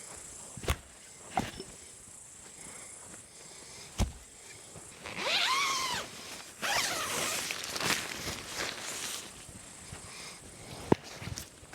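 A few sharp clicks or knocks, then spells of rustling and scraping from about five seconds in.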